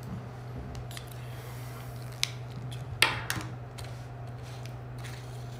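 A few sharp clicks, the loudest about three seconds in and followed by a brief scrape, over a steady low electrical hum.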